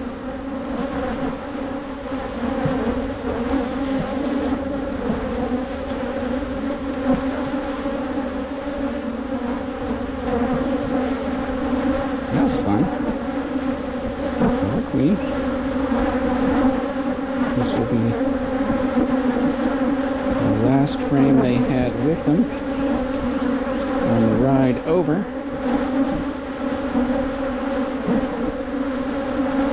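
Many honeybees from an opened hive buzzing in a steady hum close to the microphone, with single bees flying past in short rising and falling whines, several between about 12 and 25 seconds in. The colony is agitated and defensive.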